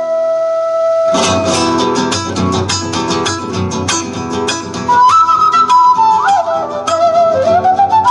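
Acoustic guitar and flute playing live together. A single flute note is held, then the guitar comes in with fast strummed chords about a second in, and in the second half the flute plays a melody with sliding pitch over the strumming.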